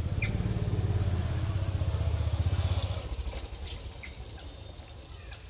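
A low engine rumble, loudest for about the first three seconds and then fading.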